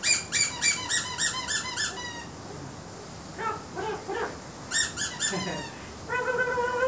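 Handheld squeaky toy squeezed over and over, sharp high squeaks about three or four a second that stop about two seconds in. A shorter run of squeaks comes again about five seconds in.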